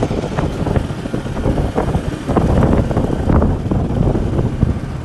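Wind buffeting the microphone on a moving motorcycle, over the motorcycle's engine running at road speed.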